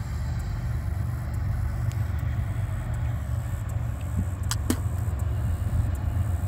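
Diesel locomotives of an approaching freight train: a steady low rumble that grows slightly louder toward the end, with a couple of short clicks about four and a half seconds in.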